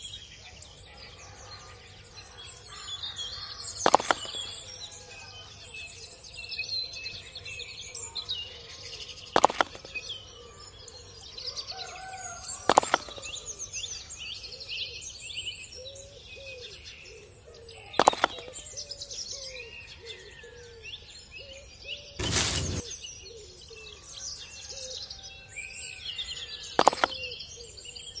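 Birds chirping and singing continuously in a background ambience, with six sharp knocks or taps spaced a few seconds apart standing out above it.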